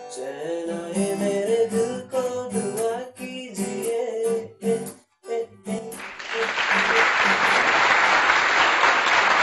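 Acoustic guitar strummed and plucked while a man sings. The playing breaks off about five seconds in, a few last notes follow, and then a loud, even noise takes over for the last three seconds.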